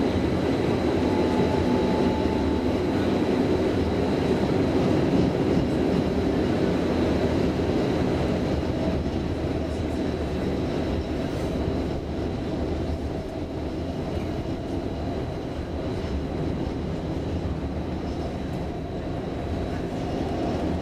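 Stockholm Tvärbanan A32 (Bombardier Flexity Swift) light-rail tram running, heard from inside near the front: a steady rumble with a faint high whine over it, easing a little in the middle and picking up again near the end.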